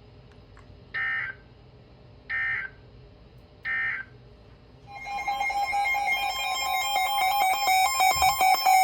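NOAA Weather Radio SAME end-of-message data bursts: three short digital squawks about a second and a half apart, marking the end of the alert. About five seconds in, a separate electronic alarm made of several steady high tones starts and builds in level.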